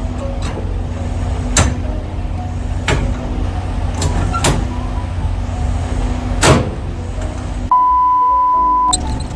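Steady low engine rumble with about five sharp clanks as the trailer's tandem release handle is worked, the loudest about six and a half seconds in. Near the end a steady 1 kHz test-tone beep sounds for about a second over TV colour bars.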